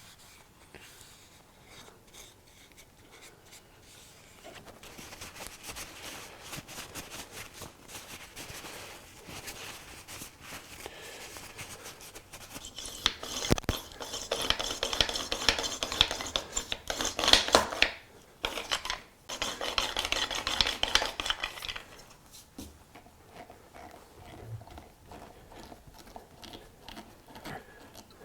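Fast, busy scraping and rubbing strokes from hand-tool work, with sharp clicks mixed in. They grow louder and denser about halfway through, then stop a little after the twenty-second mark.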